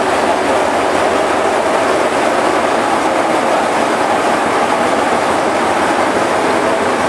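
A State Railway of Thailand diesel locomotive's engine running close by, loud and steady.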